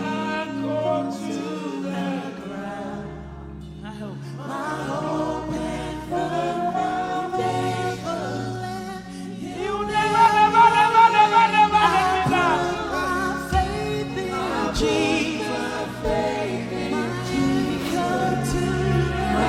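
Gospel worship song: choir-style singers over sustained keyboard and bass chords, swelling to a louder, higher held note about halfway through.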